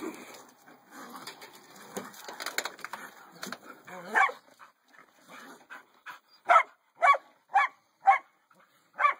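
A dog barking at a raccoon. One bark comes about four seconds in, then a quick run of sharp barks about half a second apart near the end, over quieter scuffling before them.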